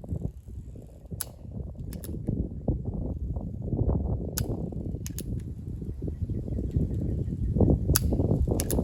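Sharp metallic clicks, several in quick pairs, from a Heritage Rough Rider .22 single-action revolver being cocked and having its trigger pulled, over a steady low rumble. The revolver is misfiring: the hammer falls and most rounds fail to go off, only two of six firing.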